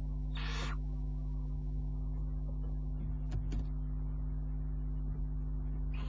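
A young barn owl gives one short, harsh hissing screech about half a second in, with two brief sharp ticks a few seconds later.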